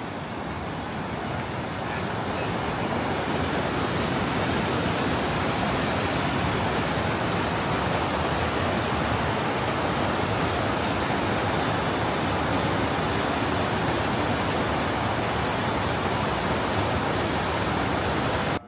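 Steady rushing of fast-flowing water, a dense, even roar that grows a little louder over the first few seconds and cuts off suddenly at the end.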